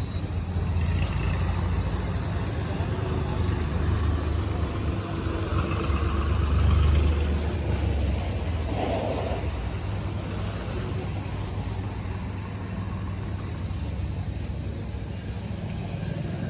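An engine running steadily with a low rumble that swells slightly about halfway through, over a steady high-pitched hum.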